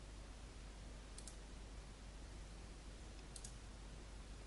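Faint computer mouse clicks: two quick pairs, about a second in and again about three and a half seconds in, over a steady hiss and low hum.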